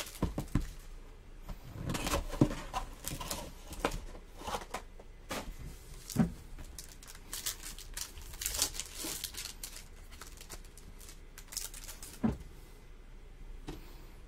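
Trading card pack's foil wrapper crinkling and tearing open in irregular bursts, then the stack of cards sliding and flicking between the hands.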